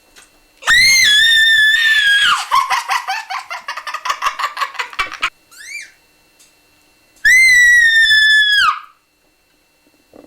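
A boy's high-pitched shrieking: a held scream that breaks into a rapid warble, a short rising squeal, then a second held scream that falls off at the end.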